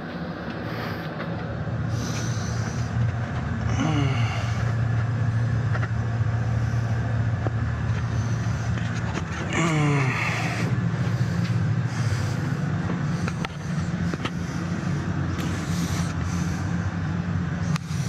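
Steady low hum of a firing steam boiler's burner running, with two brief sliding-pitch sounds about four and ten seconds in.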